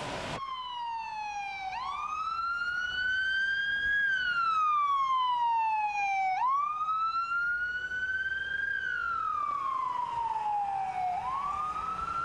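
Ambulance siren driving by, sounding a slow wail that rises and falls about every four and a half seconds.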